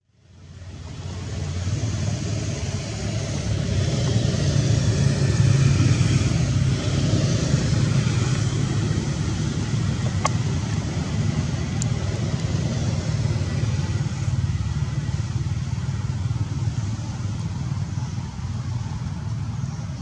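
A steady low rumble of outdoor background noise, fading in over the first couple of seconds, with two brief clicks around the middle.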